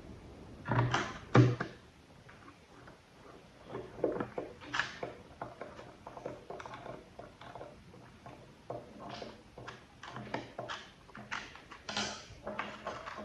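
Irregular knocks and clicks of hard parts being handled on a workbench, with two louder knocks close together about a second in and scattered lighter clicks after.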